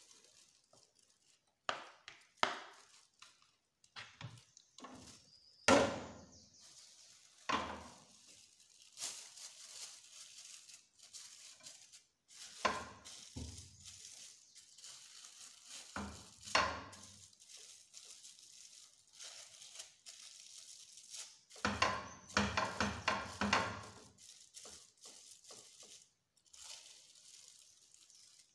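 Crinkling and rustling of thin plastic wrap being pressed and smoothed over a mound of amala on a ceramic plate, mixed with scattered knocks and clatters of the plate and spoon against an aluminium pot. The loudest knock comes about six seconds in, and a dense run of quick rustling pats follows later on.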